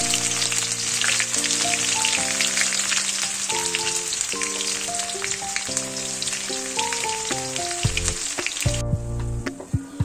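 Spinach (palak) frying in hot oil in a pan: a continuous sizzle full of small crackling pops that stops abruptly about nine seconds in. Gentle instrumental background music plays underneath.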